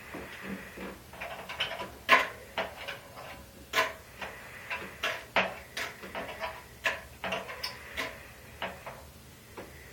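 An irregular run of a couple of dozen sharp clicks and light knocks, the strongest about two seconds in, over a faint steady high-pitched tone.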